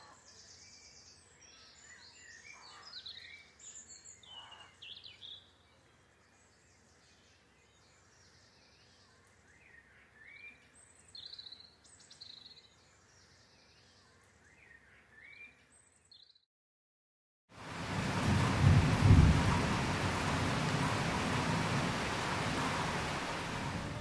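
Faint birdsong, scattered chirps and short calls, then about a second of silence, after which heavy rain comes in loud, with a low rumble of thunder that is strongest soon after the rain begins.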